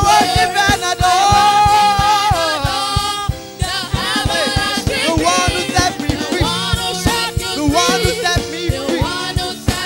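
Gospel worship song sung live by a lead singer with backing singers, over instrumental accompaniment with a steady beat.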